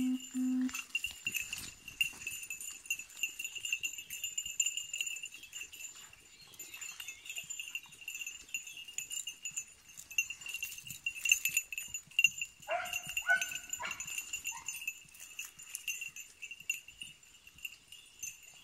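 A hunting dog's collar bell jingling continuously as the beagle works through the brush, with a short run of three or four bays from the beagle about two-thirds of the way through, the cry of a beagle on a hare's scent. A brief low note sounds at the very start.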